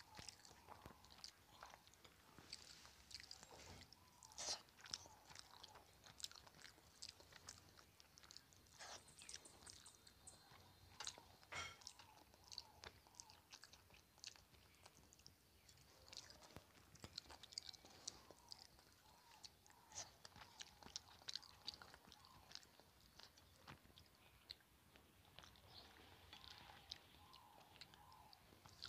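Quiet chewing of rice eaten by hand, with many small wet mouth clicks and smacks.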